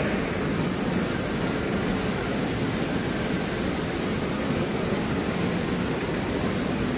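Steady rushing of a waterfall, an even wash of falling water that does not change.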